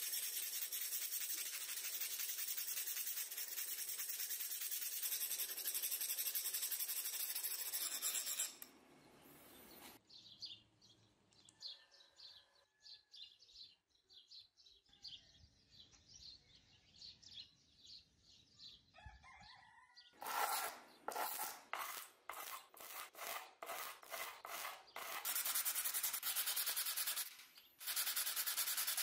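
Hand file rasping across a small steel part held in a vise, dense steady strokes for about eight seconds. After a quiet stretch of faint handling, sandpaper is rubbed by hand over the flat steel piece: separate strokes about two a second from about twenty seconds in, becoming continuous near the end.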